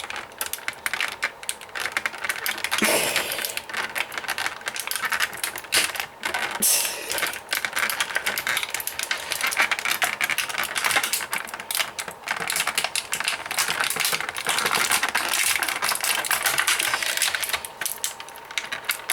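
Plastic toy packaging crackling, with dense rapid clicks, as a Bakugan toy is worked loose from it by hand.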